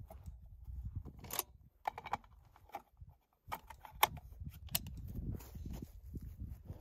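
Magazine change on a Ruger Precision Rifle: a handful of sharp metallic clicks and clacks, spread irregularly, as the emptied three-round magazine comes out and a five-round one goes in, over a low rumble.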